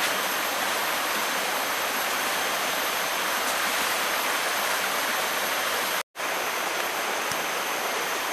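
Steady, even rush of water noise, broken by a split-second dropout about six seconds in.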